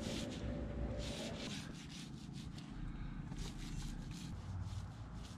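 Small paint roller rolling wet black bottom paint onto a fibreglass boat hull: a soft rubbing swish in quick repeated strokes, about two or three a second.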